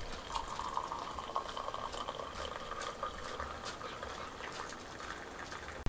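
Liquid being poured into a container, with scattered small splashes and the pitch slowly rising as the container fills.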